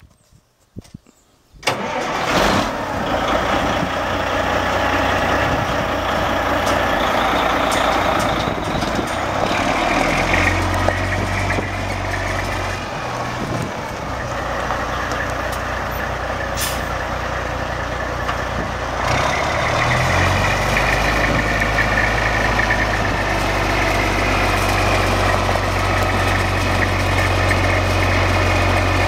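Freightliner FLD120 semi tractor's diesel engine starting about two seconds in, then running steadily at idle, with its engine speed shifting a few times.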